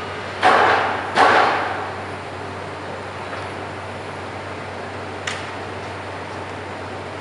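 Two loud clanks about 0.7 s apart, each ringing out for about half a second, then a single sharp click about five seconds in, over a steady low hum.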